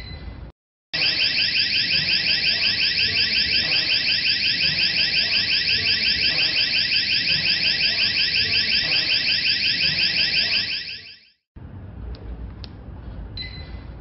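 Wireless door/window alarm host siren going off, set off by the door sensor because the door was opened while the system was armed: a loud, high-pitched warbling tone pulsing about five times a second. It sounds for about ten seconds, then cuts off, with a short beep near the end.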